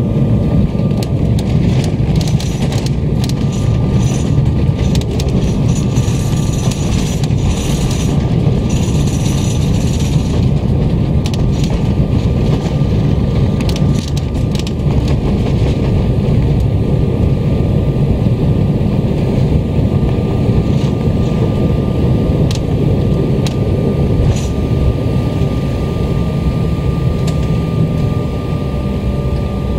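Cabin noise of a jet airliner rolling out on the runway after landing: a loud, steady rumble from the engines and wheels, with ground spoilers raised for braking. Short rattles and knocks come through the rumble, mostly in the first ten seconds.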